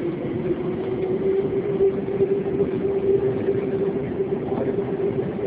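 Tokyo Metro Fukutoshin Line subway train running, heard from inside the car: steady running noise with a constant mid-pitched whine over it.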